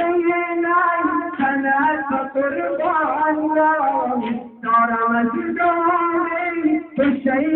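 A male voice chanting a noha, a Shia mourning lament, unaccompanied. He holds long, steady notes with a few wavering bends and breaks off for short breaths between phrases.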